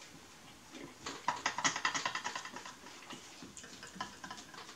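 Eating sounds: a sub sandwich being picked apart by hand and chewed, with a quick run of small crackly clicks about a second in that thin out toward the end.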